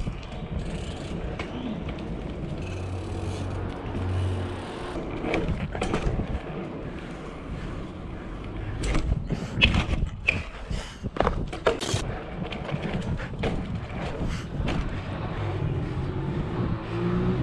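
BMX bike rolling on asphalt: tyre rumble and wind on the bike-mounted camera, with a few sharp knocks and rattles from the bike about halfway through.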